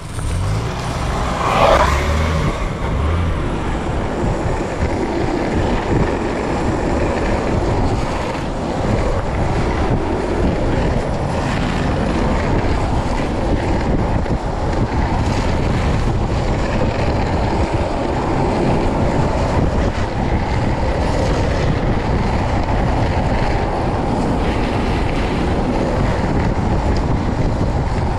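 Steady rush of wind over the microphone mixed with the roll of urethane skateboard wheels on asphalt at high speed. There is a short, louder, higher-pitched sound about two seconds in.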